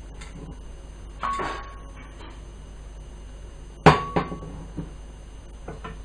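Wooden spatula knocking against a nonstick frying pan: one knock with a brief ring about a second in, a sharper and louder one near the middle, then a few lighter taps.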